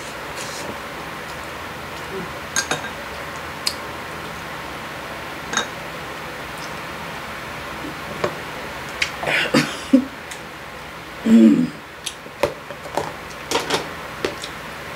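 Chopsticks and a metal spoon clicking against bowls and a stainless pot while someone eats, the clicks scattered at first and coming thicker in the second half, with short eating sounds among them. A steady low hiss runs underneath.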